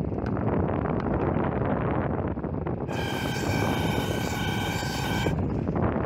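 York split air conditioner's indoor unit fan running with a steady whir of air. About halfway through, a high whine of several steady tones joins in for two seconds or so, then drops away.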